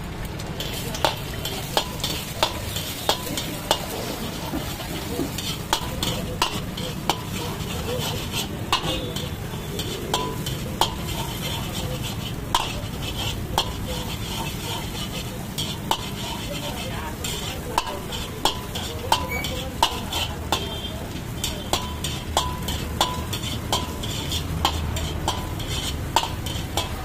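Eggs sizzling in hot oil in a large black iron wok as a steel ladle scrambles them, the ladle striking the pan with a ringing clank about twice a second.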